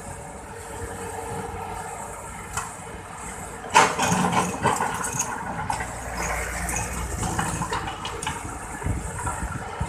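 Excavator's diesel engine running steadily. About four seconds in, a sudden loud rush and clatter, typical of a bucket load of earth and stones being dumped, trails off over the next two seconds.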